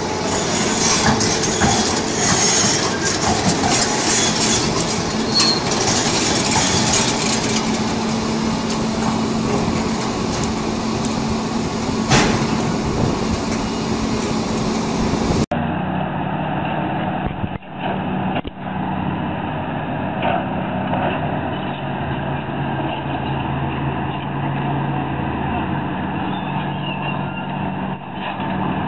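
Heavy diesel machinery in a stone quarry: a hydraulic excavator running and working as it sets a large boulder into a dump truck, with one sharp knock about twelve seconds in. About halfway through, the sound cuts to a duller, steady engine hum from excavators working on the quarry bench.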